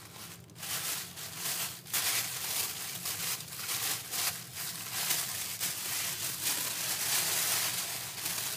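Tissue paper rustling and crinkling as hands dig through it, in quick irregular bursts that start about half a second in and continue throughout.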